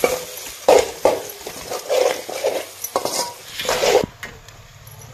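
Metal ladle scraping and clanking against a metal kadai while stirring masala frying in oil: a run of quick, uneven strokes that stops suddenly about four seconds in.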